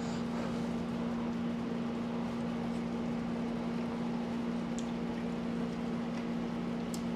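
Steady low electrical hum under a constant hiss, the background drone of a household appliance or air conditioner, with a couple of faint ticks.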